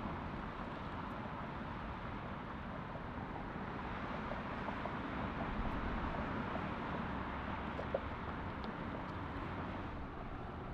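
Steady rush and rumble of jet airliner engines at taxi idle.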